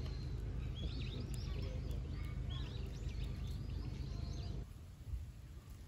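Small birds chirping in quick, repeated short calls over a steady low background rumble; the chirps thin out and the rumble drops away near the end.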